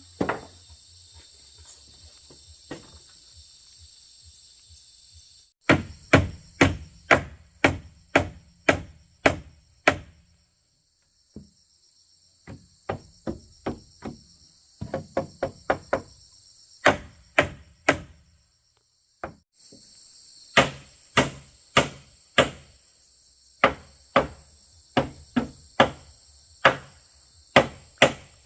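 Repeated blows of a hand tool striking wood, about two a second, in several runs with short pauses. Insects chirr steadily in the background for part of the time.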